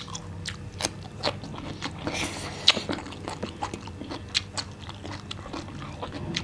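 Close-miked eating: chewing with sharp, scattered crunches from bites of raw cucumber slices.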